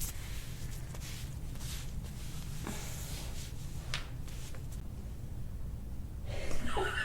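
Faint, irregular rubbing strokes of a treatment on oiled skin over a steady low hum, with a short vocal sound near the end.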